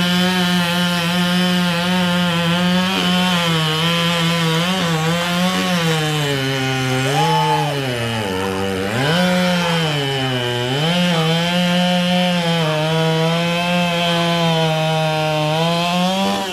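Racing chainsaw running flat out through a log, its high engine note sagging twice as the chain bogs in the wood and then climbing back. It cuts out right at the end.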